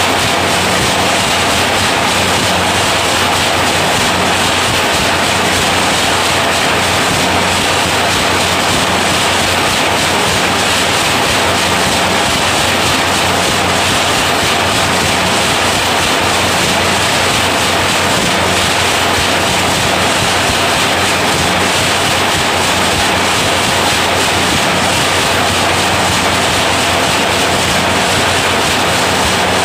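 Automatic wire nail making machine running at speed: a loud, steady, fast mechanical clatter over a low motor hum as it cuts and heads nails from wire.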